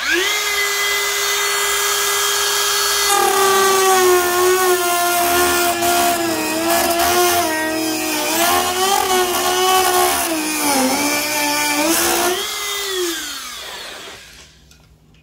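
Dremel rotary tool spinning up to a steady high whine, then its cutoff wheel cutting a slit into a plastic 55-gallon barrel, the pitch dipping and wavering under the load. About twelve seconds in the tool is switched off and winds down with a falling whine.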